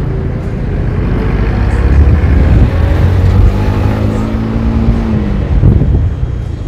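Motorcycle engine on the move, its pitch rising as it accelerates from about two seconds in and dropping near the end as the throttle eases off, over a heavy low rumble.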